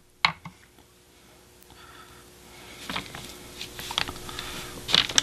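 A sharp click just after the start, then a brush loading acrylic paint on a paper palette: a soft scratchy brushing that builds after a couple of seconds, with a few light taps of the bristles against the palette.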